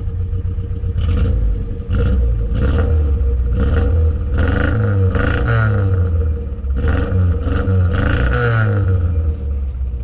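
VAZ 2101's inline-four engine being revved in a string of about eight sharp throttle blips from idle, with a short lull about six seconds in, through an aftermarket exhaust meant to give a Subaru-style boxer sound.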